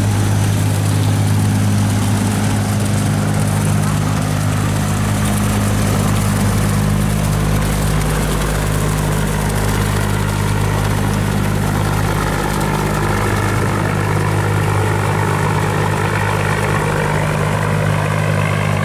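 Diesel engine of a steel river barge passing close by, a steady low drone, over water splashing from the jets pouring off its hull. A higher rising whine joins in near the end.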